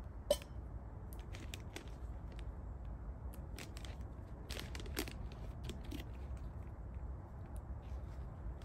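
Plastic food packet crinkling and tearing as it is opened by hand: irregular crackles and rustles, with one sharp snap shortly after the start.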